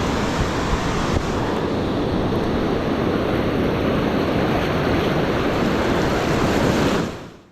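Ocean surf washing on the beach with wind buffeting the microphone, a steady rushing noise that fades out near the end.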